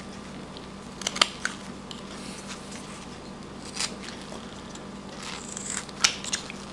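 Whittling knife slicing small chips off a wooden carving: short, crisp cuts, a cluster about a second in, one near four seconds, and several more toward the end.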